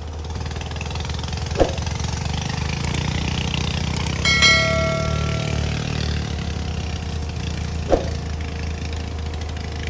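Sumitomo SH120-A3 excavator's diesel engine running steadily, working harder for a few seconds mid-way. Two sharp knocks and one metallic clang that rings on for over a second, about four seconds in.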